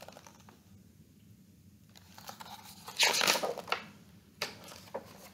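A page of a hardcover picture book being turned: a short rustle of stiff paper about three seconds in, followed by a couple of light clicks as the book is handled.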